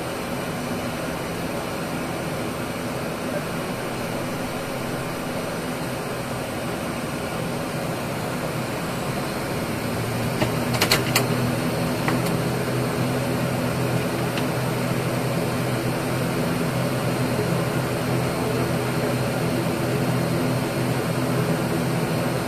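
ATR 72-600's Pratt & Whitney PW127 turboprop engines running with a steady drone. About ten seconds in, the hum strengthens and grows a little louder, with a few sharp clicks at about that time.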